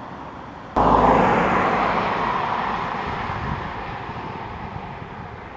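A passing train's noise cuts in abruptly about a second in, then fades steadily over the next few seconds as it draws away.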